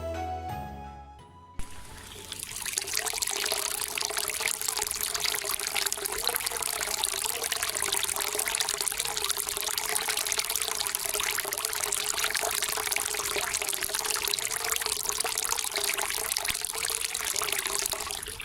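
Water pouring and trickling steadily, a continuous splashing of a small stream of water falling into water.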